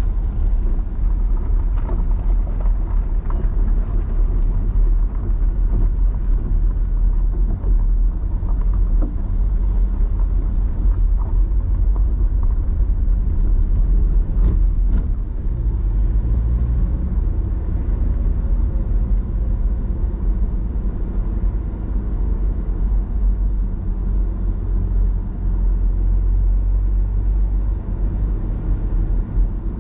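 Car driving, a steady low road and engine rumble heard from inside the cabin, with small clicks of tyres on gravel in the first few seconds.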